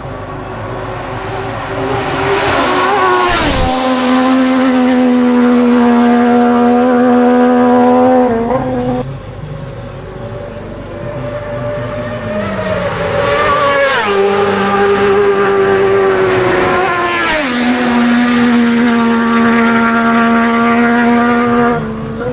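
Three racing motorcycles pass at flat-out speed: one a few seconds in, then two close together about ten seconds later. Each high engine note rises as it approaches, drops sharply in pitch as it goes by, then holds a steady lower note as it fades away.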